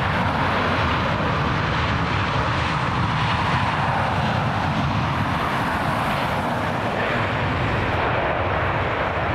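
Steady jet engine noise from a Boeing 737 airliner as it touches down and rolls out along the runway.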